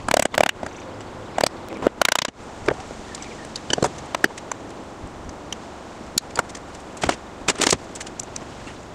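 Scattered sharp knocks and clicks of hand tools working a nail in an old oak chair spindle. There are a few loud strikes near the start and about two seconds in, then lighter ticks, and a couple more knocks near the end.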